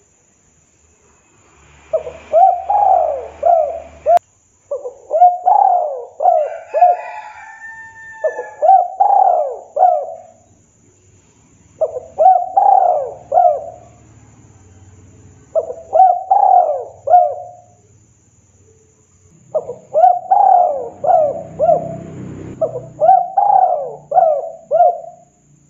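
Spotted dove (tekukur) cooing in about seven repeated phrases, each a quick run of several notes, with pauses of a second or two between them.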